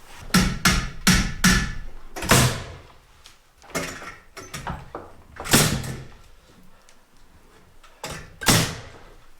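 Nails being driven into wooden framing lumber: a quick run of four strikes in the first second and a half, then single strikes spread out, the loudest about five and a half seconds in and near the end.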